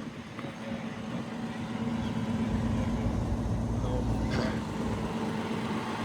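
Komatsu PC490LC-11 excavator's diesel engine running steadily, growing louder with a heavier low rumble about two seconds in as the machine goes to work. A single sharp clank sounds about four seconds in.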